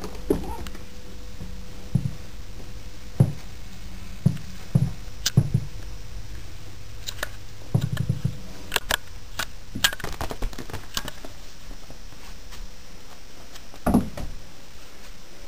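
Irregular soft thumps and sharp clicks from a kitten playing and scrambling on carpeted stairs while it is followed up them and filmed, over a faint steady hum.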